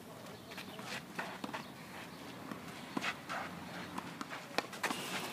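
Tennis rally on a clay court: sharp racket-on-ball hits, the loudest about three seconds in and again about a second and a half later, between the players' footsteps and shoe scuffs on the clay.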